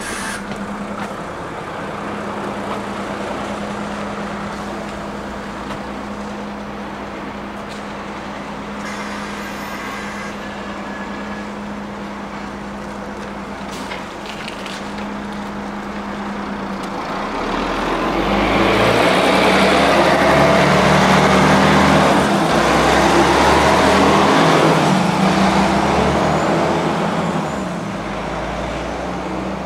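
Bus engine and road noise heard from inside the cabin: a steady engine hum, then about 17 seconds in it grows louder as the bus pulls away and speeds up. The engine note changes in steps and the road noise rises before easing off near the end.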